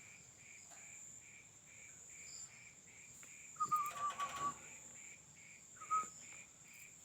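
Insects chirping steadily in the background, a high whine with a regular chirp about twice a second. About halfway through, a bird gives a short wavering whistle-like call with a few clicks, and it gives a brief second call near the end.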